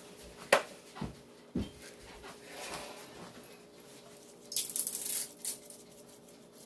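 Kitchen clatter: three sharp knocks in the first two seconds as bottles and containers are set down, then a seasoning shaker shaken over raw chicken in a metal roasting pan, a brief burst of rattling about four and a half seconds in.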